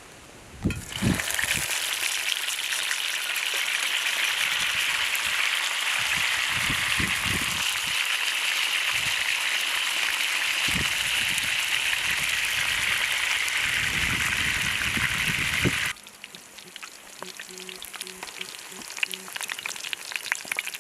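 Food frying in hot oil in a pan: a loud steady sizzle sets in about a second in, with occasional low knocks of the food or utensil being moved in the pan. Near the end it drops abruptly to a quieter, crackling sizzle.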